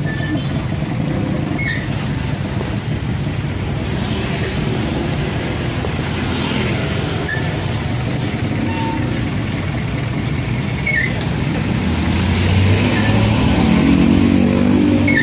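Steady low rumble of motor vehicle engines in street traffic, growing louder near the end.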